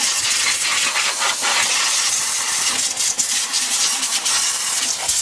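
Compressed-air blow gun hissing as it blows dirt off a lawnmower engine, a steady hiss that wavers as the nozzle is moved about.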